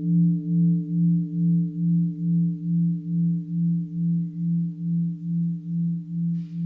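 Mindfulness bell, a bowl-shaped standing bell, ringing on after being struck: one low steady tone with fainter overtones above it, wavering in loudness about twice a second as it slowly fades.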